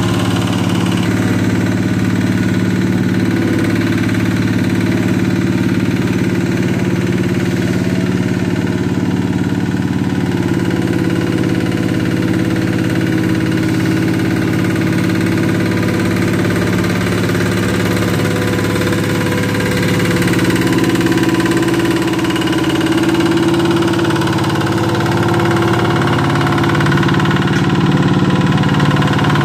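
Small walk-behind double-drum vibratory road roller's engine running steadily while compacting fresh asphalt, growing a little louder in the last third as the roller comes closer.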